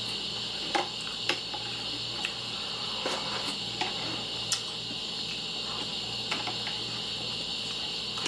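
Someone eating cereal from a bowl: a scattering of short sharp clicks and crunches, about one a second at first and sparser later, over a steady high-pitched background hiss.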